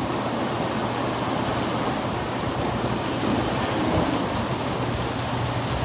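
Steady rushing noise of car wash tunnel equipment with a low, even hum underneath, as a car rolls slowly into the tunnel.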